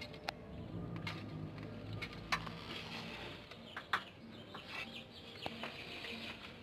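2010 Dodge Avenger engine running with a steady low hum and irregular sharp ticks and chirps from the engine bay: the strange noise that the mechanic takes for a loose part.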